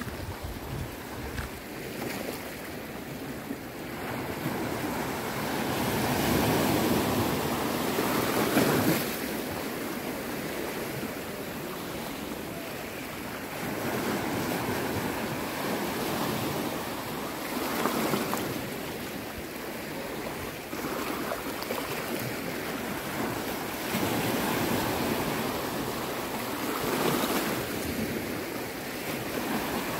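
Small sea waves breaking and washing over a rocky shoreline, the surf swelling and fading every few seconds.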